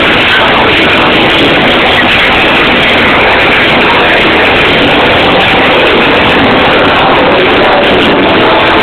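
Loud live music and crowd noise in a packed venue, overloading the camera microphone into a dense, distorted wash with no pauses.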